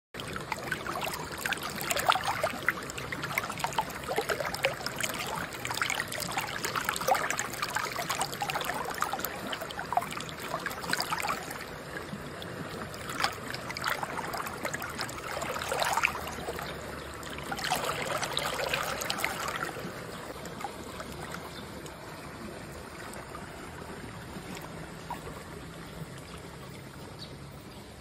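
A hand swishing and splashing through a shallow, clear stream over stones, over the steady trickle of running water. The splashing stops about two-thirds of the way through, leaving only the flowing stream.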